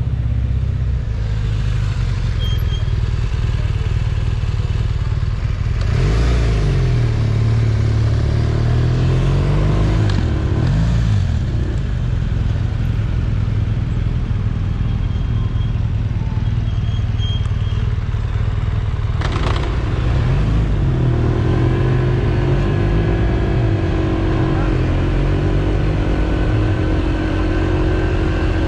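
Honda PCX 125 scooter's single-cylinder engine idling at a stop, then pulling away with its pitch rising about six seconds in and again after about nineteen seconds, settling into a steady cruise at town speed.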